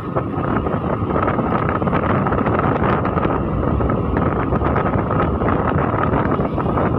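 Wind buffeting the microphone over the steady running of a Honda scooter and its tyres on a rough road, ridden at low speed.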